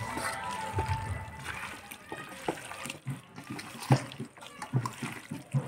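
A hand squelching and slapping through chunks of goat meat coated in mustard oil, spice paste and mustard greens in a steel bowl, mixing in the marinade: irregular wet squishes with a few sharper slaps, the loudest about four seconds in.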